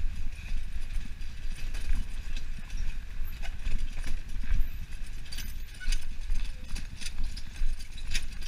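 Wheels rolling over cobblestone paving: a continuous low rumble broken by irregular rattling knocks as the wheels hit the stones.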